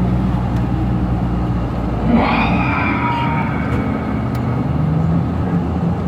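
Steady engine drone and road noise of a moving tour coach, heard from inside the passenger cabin. About two seconds in there is a short, higher-pitched sound over the drone.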